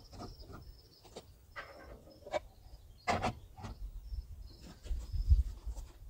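Scattered clicks and knocks of gloved hands working at a skid steer's hydraulic fill point, with a low rumble about five seconds in.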